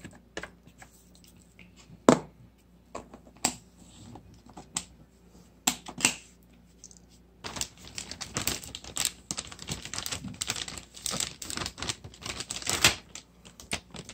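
Scattered taps and clicks, then from about halfway through a dense run of rapid squishing and crackling as clear slime is mixed with pigment in a bowl.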